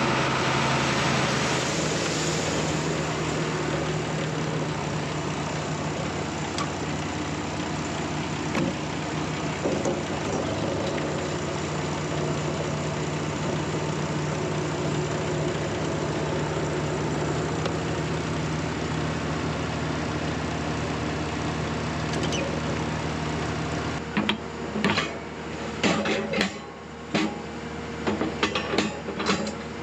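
Large farm machine's diesel engine running steadily. Near the end the engine sound drops back and a run of sharp clicks and knocks comes through.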